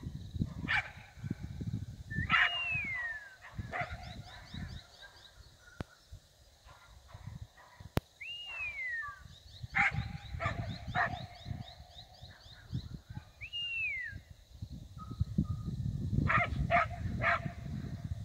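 Cattle dog barking in short single barks, with a quick run of three barks near the end. Three short whistles that rise and then fall cut in, with a low rumble underneath.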